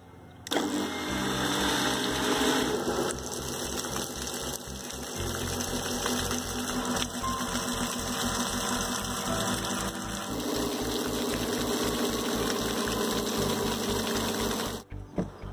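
Homemade water pump driven by a mixer grinder's AC motor, running at speed with water gushing out of the PVC outlet pipe. The sound starts suddenly about half a second in and cuts off just before the end.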